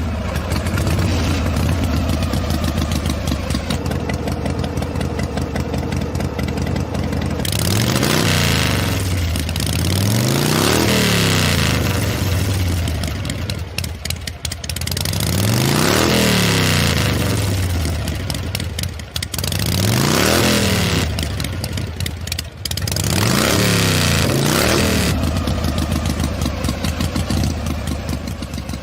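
An engine running, revving up and back down about five times, with idling in between.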